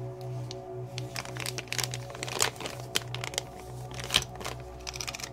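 Clear plastic zip-lock bag crinkling and crackling as hands handle it, with louder crackles about two and a half and four seconds in, over steady background music.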